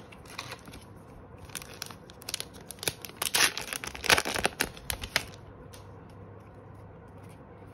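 Foil wrapper of a Pokémon booster pack crinkled and torn open by hand. It is a run of crackling rustles that is loudest about three and a half to four and a half seconds in, then dies down.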